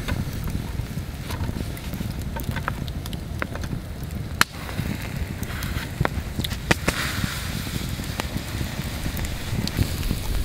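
Wood campfire crackling under a low steady rumble, with scattered sharp clicks and knocks as clams are set on the wire grill over it; the loudest click comes about four and a half seconds in.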